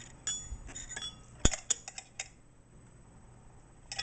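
Sharp metallic clicks and clinks from a Necchi 554 sewing machine's round metal needle plate and its release being worked by hand, trying to push it in and pop the plate up. A cluster of clicks fills the first two seconds, the sharpest about one and a half seconds in, and a few more come near the end.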